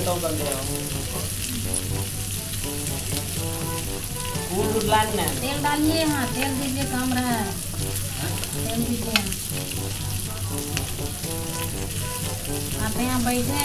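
Pieces of kawai fish (climbing perch) sizzling steadily as they shallow-fry in oil in an iron pan over a wood fire. A few pitched, wavering sounds rise and fall over the sizzle in the middle and near the end.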